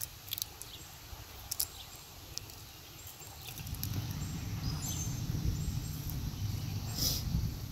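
Boiled crawfish being cracked, peeled and eaten by hand: scattered short snaps and smacks. A low rumble rises from about halfway and fades near the end.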